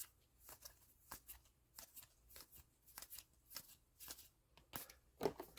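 Trading cards from a freshly opened Sorcery: Contested Realm booster pack being flipped through by hand, one card slid behind another: soft, irregular card flicks and slides, two or three a second, with a louder rustle near the end.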